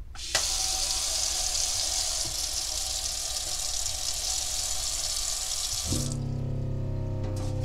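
Water running from a mixer tap into a stainless steel galley sink, turned on just after the start and shut off about six seconds in. A steady low hum follows the shut-off.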